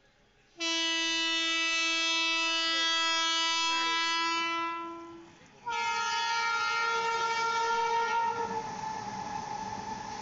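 WAG-12B electric locomotive's air horn sounding two long blasts, the second on a higher note and sliding slightly down in pitch as the locomotive draws alongside. The rumble of the goods wagons rolling past follows.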